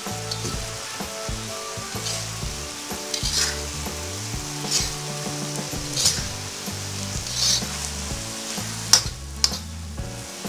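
Stir-fry sizzling in a wok, with a metal spatula scraping through the food about every second and a half and a sharper clank against the wok near the end.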